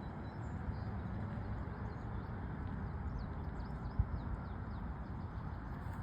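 Birds chirping faintly in short, quick notes over a steady low rumbling background noise, with a single thump about four seconds in.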